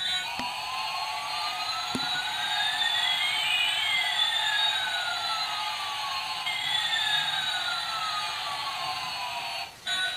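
Battery-operated toy airliner's electronic jet-engine sound effect through its small speaker: a steady hiss with whistling tones sliding up and down in pitch past each other. It cuts out briefly near the end.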